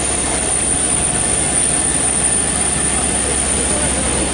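Steady drone of a parked Boeing 737-800 on the ground during boarding, the air-conditioning and auxiliary power unit running with a constant high whine over a low hum, with faint passenger chatter.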